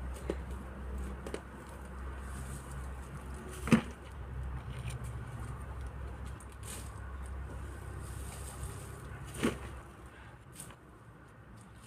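Shovel scraping into loose soil and soil being tipped into a metal wheelbarrow, with two sharp knocks, about four seconds in and about nine seconds in, and a few lighter clicks. A low steady rumble runs underneath and drops away near the end.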